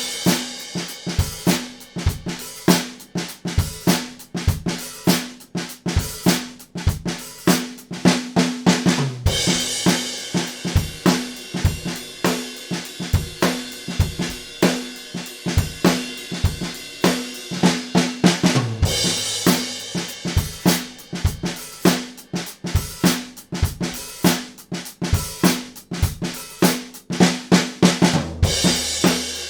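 A drum kit playing a steady beat on snare, kick and hi-hat, with cymbal crashes bursting in about a third of the way through, about two-thirds through, and again near the end.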